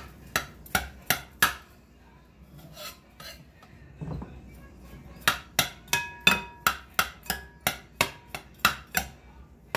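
Metal spoon chopping and breaking up cornbread in a ceramic bowl, clinking against the bowl's sides: a few quick clinks, a pause with one duller thud about four seconds in, then a run of about three clinks a second, some leaving a brief ringing.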